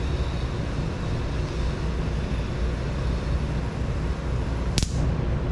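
Powder coating gun spraying on compressed air: a steady rush of air over a low rumble, with one sharp click near the end.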